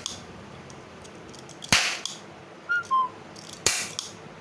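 Toy cap gun firing ring caps: two sharp bangs about two seconds apart. Between them come two short whistle-like notes, the second a little lower than the first.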